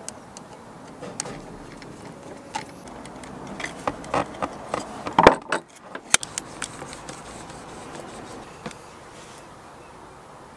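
Small clicks, taps and rattles of a screwdriver and a plastic shore-power plug being assembled onto a cable by hand. They come most thickly between about four and six seconds in, with the loudest click about five seconds in.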